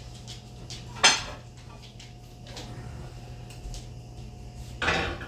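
Kitchenware clanking: one sharp clank about a second in and a longer clatter near the end, over a steady low hum.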